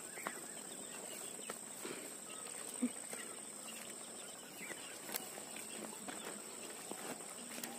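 Steady high-pitched chirring of insects, with a few sharp footstep clicks as people step along a muddy channel bank and onto stones, and faint animal calls in the background.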